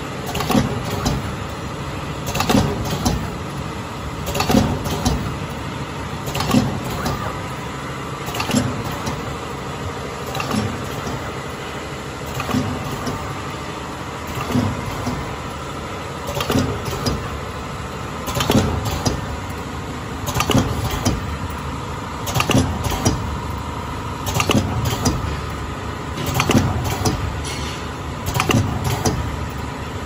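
Automatic powder sachet packing machine running: a steady motor hum with a cluster of mechanical clicks and knocks repeating about every two seconds, one for each packing cycle.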